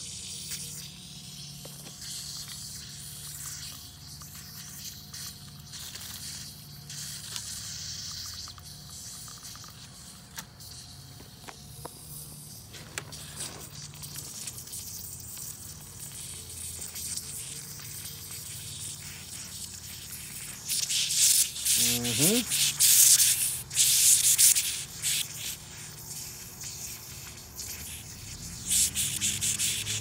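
Nitrogen hissing out of a leak in a Lennox condenser coil pressurised to about 250 psi, frothing through leak-detection soap bubbles with a faint crackling sizzle: the sign of a refrigerant leak in the coil. About two-thirds of the way through and again near the end, louder rushing noise covers it.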